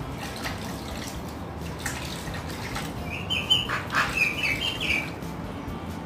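Caged pet parrot chirping during its bath: a quick series of short, high chirps between about three and five seconds in, with water splashing around it.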